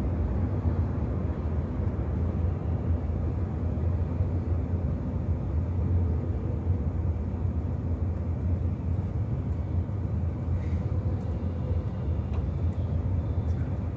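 Steady in-cabin drone of a Tata Bolt hatchback under way: engine and tyre/road noise, a low hum with no sudden events.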